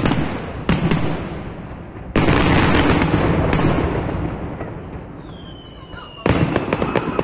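Fireworks display: aerial shells bursting with sharp bangs. The loudest comes about two seconds in and is followed by a long crackling rumble that slowly dies away, then a new volley of rapid bangs near the end.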